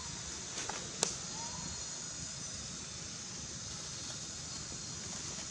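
Steady outdoor background hiss with a low rumble, a sharp click about a second in, and a faint short chirp soon after.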